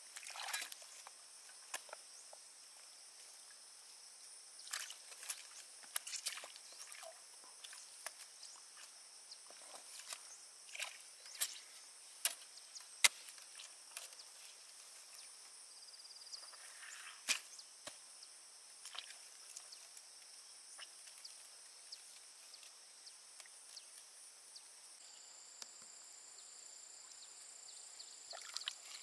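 Insects chirring steadily in a high, even drone, with irregular sharp clicks and knocks scattered through it; the loudest knocks fall about halfway through.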